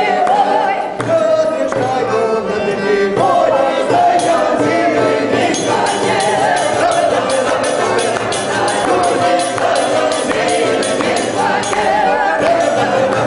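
A mixed folk choir sings a Don Cossack song in chorus, accompanied by a button accordion and a tambourine that keeps a steady beat.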